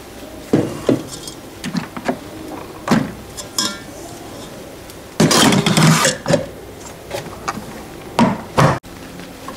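Handling sounds at a small electric rice cooker: a series of clicks and knocks as its lid is unlatched and lifted, a rush of noise lasting about a second midway, and two sharp knocks near the end as the inner pot is handled.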